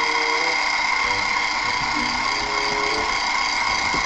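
Electric hand mixer running at a steady speed, its beaters whirring in a bowl of cake batter, a constant even whine.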